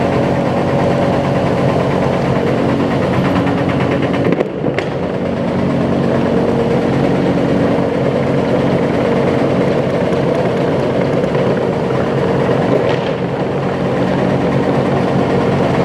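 Heavy sawmill machinery running steadily, a loud continuous hum and rumble with a short break about four and a half seconds in.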